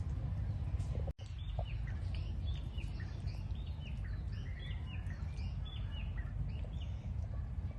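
Small birds chirping in many short, overlapping calls over a low steady rumble, with a brief dropout about a second in.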